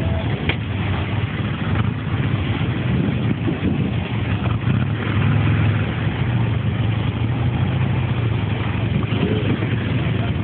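Many motorcycle engines running at once in a steady drone, a group of bikes idling and rolling slowly.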